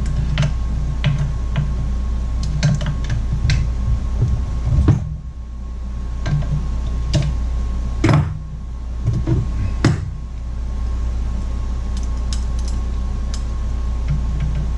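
Small clicks and taps of hands working at a chainsaw's fuel line, untwisting a makeshift twist-tie hose clamp, with three louder knocks in the middle, over a steady low hum.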